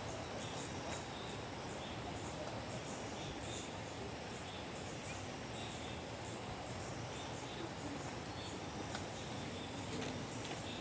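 Insects calling in a steady, pulsing high trill over a constant outdoor background hiss.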